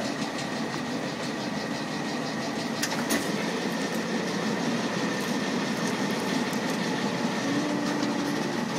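Plastic plate-making machinery running steadily, with a constant high whine over the hum. A fast regular ticking runs through the first couple of seconds, and there are a couple of sharp clacks about three seconds in.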